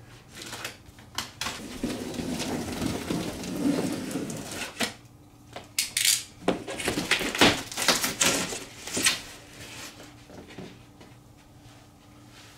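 Unpacking and handling noise: a rustle for a few seconds, then a run of sharp clicks and knocks as hard parts are handled and set down, going quieter near the end.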